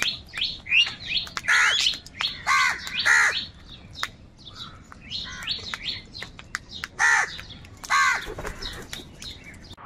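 A flock of crows cawing: about five loud, harsh caws, with many quicker, shorter calls in between.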